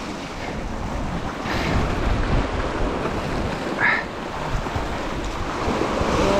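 Ocean surf washing against a rock ledge, with wind buffeting the microphone.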